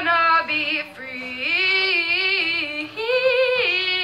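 A woman singing solo, drawing out several long notes that glide up and down with a slight waver, with no clear words.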